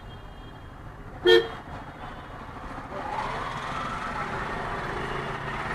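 A short single toot of a vehicle horn about a second in, over street traffic noise that grows louder from about three seconds in.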